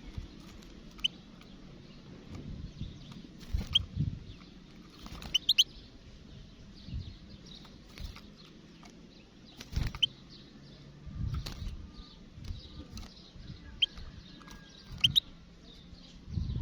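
European goldfinch giving short, sharp chirps, one every second or few seconds, over a faint hiss. Low rumbling thumps come in between, and the longest one is near the end.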